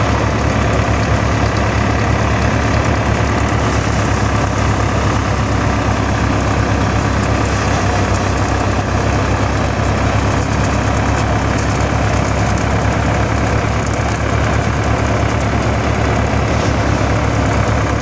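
Diesel tractor engine running steadily while driving a paddy thresher, with the engine and the threshing machine running together in an even, unbroken beat.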